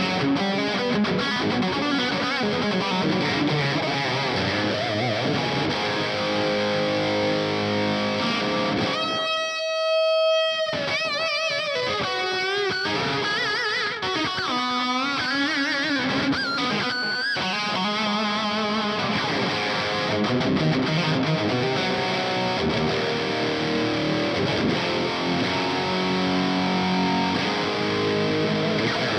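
Seven-string electric guitar in drop G sharp, played through a modded Marshall JCM 900 SL-X 50-watt head with a Fortin Blade boost and heavy distortion. Tight, aggressive low riffs give way to lead playing, with a long held vibrato note about nine seconds in and bent notes after it.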